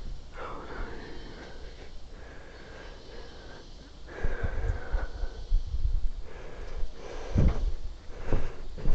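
Hand saw cutting wood in back-and-forth strokes, about two a second in the second half, with a few knocks near the end.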